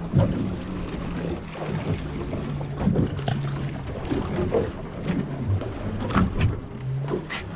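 Boat's outboard motors running with a low, steady hum that shifts in pitch now and then, with wind on the microphone and a few short knocks and splashes.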